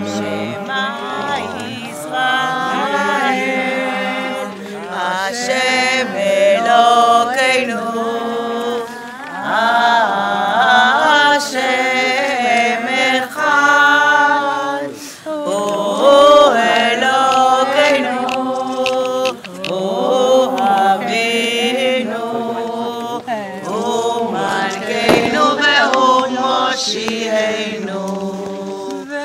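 Unaccompanied chanted singing: a slow melody of long, wavering notes in phrases with short pauses between them.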